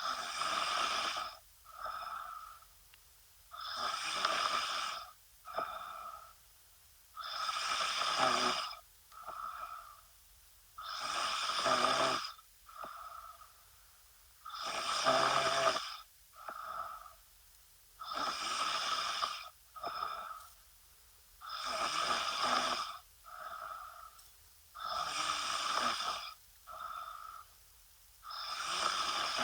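A woman snoring steadily in her sleep. Each breath gives a long, loud snore followed by a shorter, quieter one, repeating evenly about every three and a half seconds.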